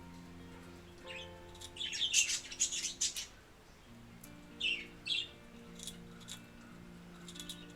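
Small pet parrots chirping: a burst of rapid high chirps about two seconds in, the loudest sound, and two shorter calls about five seconds in. Under them runs background music of soft held notes.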